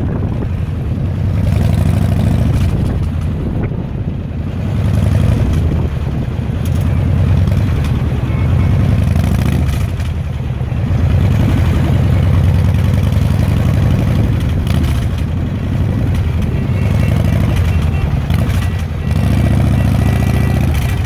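A car driving over a bridge, its road noise and wind making a heavy low rumble that swells and eases every few seconds.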